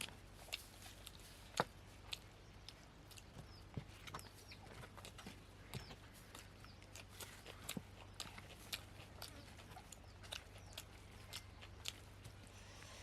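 Faint, irregular clicks and smacks of fast eating: chewing, and poori torn by hand and dipped in mutton curry. A few faint high chirps sound in the background.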